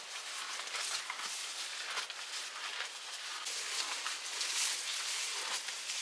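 Cattle feeding on fresh-cut green grass at close range: the grass rustling and tearing as it is pulled up and chewed, an uneven run of small crackles.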